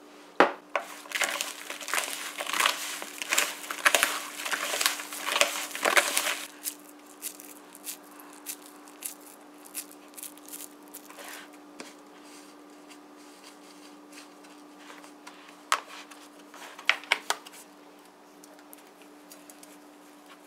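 Bare hands mixing and squeezing sticky tamarind pulp with sugar in a plastic bowl: a dense run of wet crackling and squishing for about the first six seconds, then sparser clicks as the pulp is pressed into balls, with a few louder ones a little past the middle.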